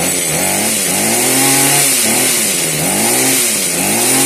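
Echo HC2020 hedge trimmer's small two-stroke engine being revved up and down about four or five times in quick succession, the pitch rising and falling with each blip of the throttle. The owner hears a weak clutch spring in it.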